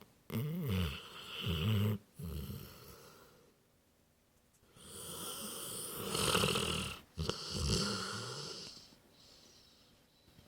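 Dog snoring in its sleep: two long snores about four and a half seconds apart, each a breathy rasp with a low fluttering buzz.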